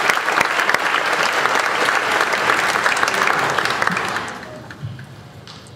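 Audience applauding, a dense, steady clatter of many hands clapping that dies away about four seconds in.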